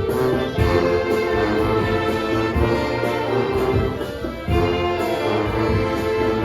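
Filipino brass band playing a Manila sound medley: brass holding chords and melody lines over a steady low beat.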